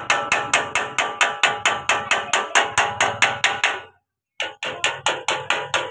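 Fast, very even clicking, about five clicks a second, with steady tones under it. It breaks off for a moment about four seconds in, then resumes at the same pace.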